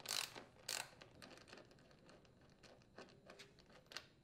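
Small clicks and scrapes of a 10mm socket being fitted onto and turning the mounting nuts in a leaf blower's plastic frame: two louder scuffs near the start, then scattered faint metallic clicks.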